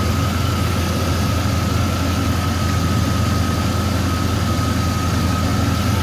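2001 GMC Sierra 1500HD's V8 engine idling steadily under the hood, with a thin, steady high-pitched whine over the low hum.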